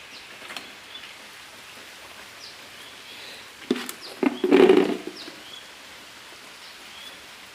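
Steady hiss of falling rain with faint, scattered bird chirps. About halfway through, a sharp click and then a louder thump.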